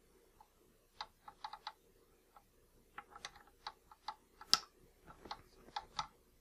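Scattered light clicks and taps from a KitchenAid Spiralizer attachment being handled while a zucchini is fitted onto its spindle, with the sharpest tap about four and a half seconds in.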